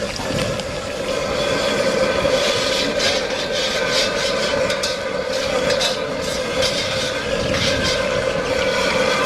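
A steady mechanical hum, with scattered sharp clicks and clatter over it.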